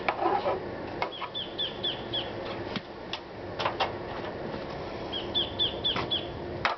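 A bird calling twice, each time a quick run of four or five high chirping notes, among scattered sharp knocks and clicks from the hand sanding work, over a steady low background hum.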